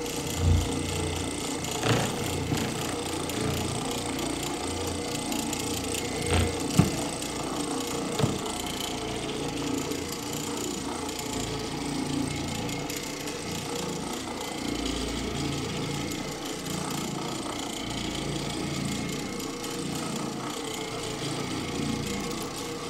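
Oreck Orbiter orbital floor machine running steadily, its pad scrubbing the carpet. A few brief knocks come in the first eight seconds or so.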